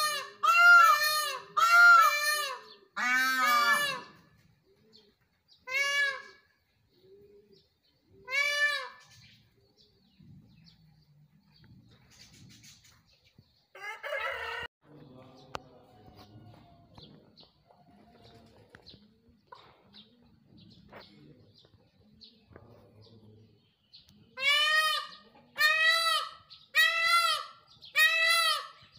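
Male Indian peafowl (peacocks) calling: loud, repeated ringing calls, four in quick succession at the start, two single calls a few seconds apart, then a quiet stretch broken by one brief harsher sound, and another rapid run of about five calls near the end.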